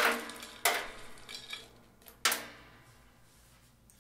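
Crushed ice poured from a metal scoop into a silver julep cup: three sudden clattering rushes, each dying away with a short metallic ring.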